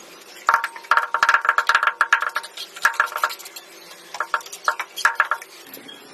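Quick series of hard taps on ceramic wall tile during tiling, each with a short ringing tone. They come in bursts: a fast run of about five a second, then shorter groups of a few taps.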